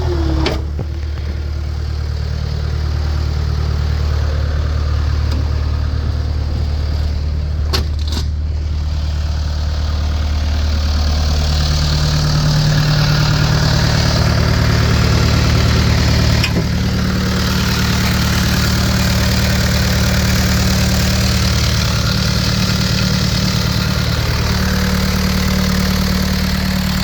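Caterpillar 236B skid steer's four-cylinder Caterpillar diesel engine running steadily. About eleven seconds in the engine speed rises to a higher steady speed. A couple of short clicks come about eight seconds in.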